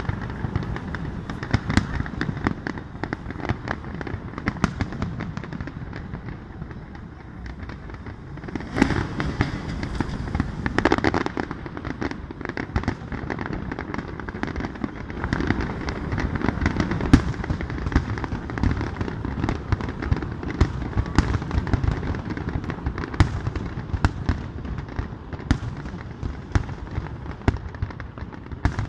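Aerial fireworks display: shells bursting in many bangs in quick succession, with a louder stretch of crackling about nine to eleven seconds in.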